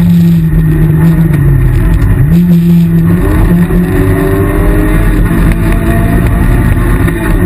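Rally car's engine running hard at high revs, heard from inside the stripped cabin. The engine note dips briefly about a second and a half in, then climbs back and holds.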